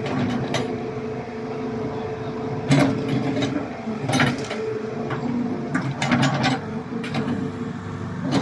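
Excavator diesel engine running steadily, with several sharp metallic knocks or clanks over it.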